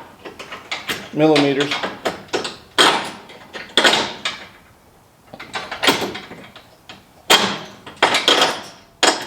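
Sharp clanks and rattles of hand tools and sawmill hardware being handled on a workbench, about six separate clatters a second or so apart.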